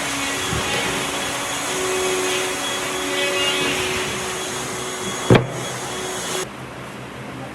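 An electric woodworking machine running with a steady whirring noise, a single sharp knock about five seconds in, and the noise dropping off abruptly about a second later.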